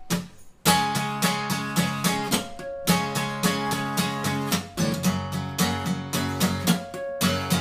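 Acoustic guitar strummed in a steady rhythm, starting in earnest about a second in, with the chord changing every two seconds or so: the instrumental intro to a song.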